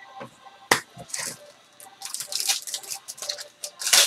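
Foil trading-card pack crinkling and tearing in the hands, a string of sharp crackles from about two seconds in, after a single light knock about a second in.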